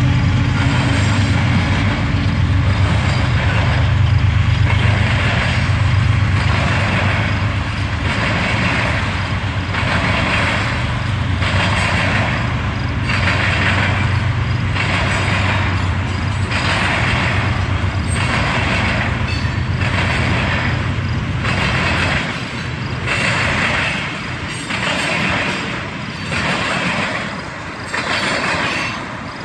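Canadian Pacific freight train passing: the diesel locomotives' engines drone low and steady, fading about two-thirds of the way through, while the tank cars' wheels roll and clatter over the rails in an even rhythm, about once every second and a half.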